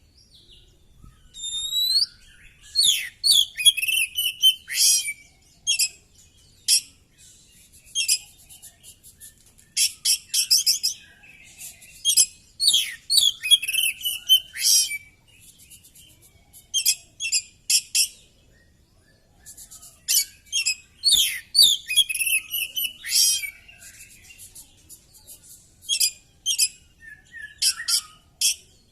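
Oriental magpie-robin (kacer) in full song: bursts of rapid, varied high whistles and chattering notes, separated by short pauses.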